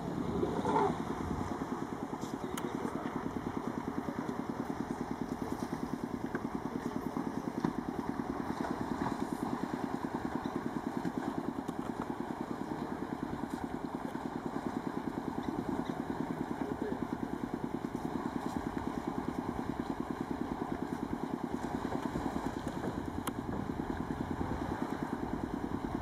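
An engine idling steadily with an even, fast pulse, with a brief louder sound about a second in.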